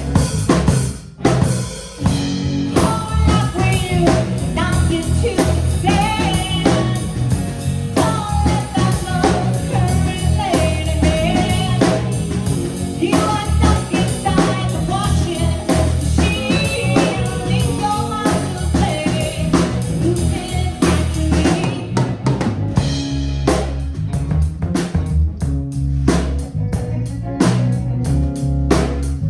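Band music with a drum kit, bass and guitar keeping a steady beat, and a bending lead melody line over it that drops out near the end. There is a brief break about a second in.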